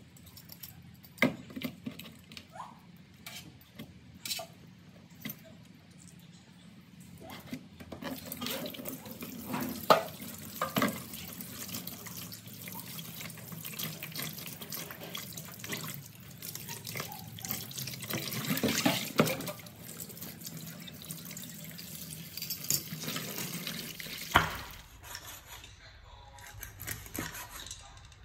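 Water splashing and running in a plastic basin as a fish is rinsed and rubbed clean by hand, with louder splashes now and then. In the first few seconds there are only scattered sharp knocks and scrapes from a cleaver scraping the fish.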